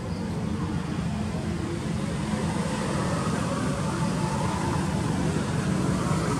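Steady low rumbling background noise, flickering in level, with no distinct events.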